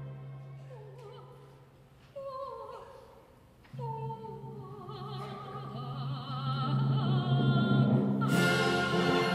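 Live music: a solo Chinese zither plays sparse single notes that bend down in pitch and waver, over a low note held by the cellos. Near the end the full string orchestra comes in loudly.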